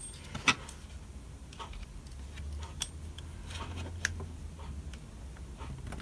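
A handful of small, irregular metallic clicks and taps as a fishing-reel handle and its freshly tightened power knob are handled and a screwdriver is set to the knob, over a low steady hum.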